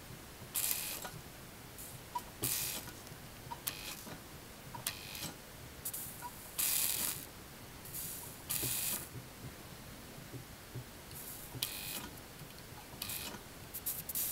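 Resistance soldering on copper sheet: short sizzling hisses, about ten of them, irregularly spaced and each under a second long, as the electrode heats the joint and the fed-in solder and flux melt into the seam.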